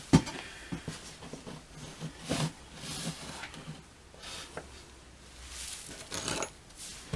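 Handling noises as a small metal chainsaw carburetor is picked up, turned and rested on a wooden workbench. There is a sharp knock just after the start, then scattered faint taps and rustles.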